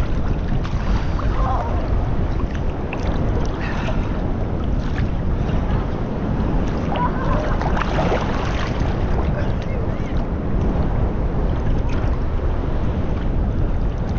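Sea water sloshing and splashing around a GoPro held at the waterline in choppy water. A steady low rumble of water and wind on the microphone, with frequent small splashes.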